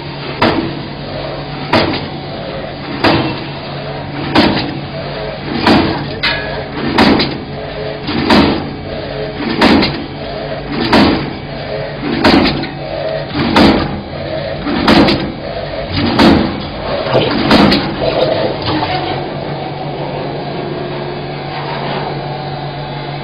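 Automatic sausage line running: a ZKG vacuum sausage filler's steady hum with a Greatwall double clipper clacking sharply about every 1.3 seconds as it clips each sausage portion, about fourteen times. The clacking stops about three quarters of the way through while the hum continues.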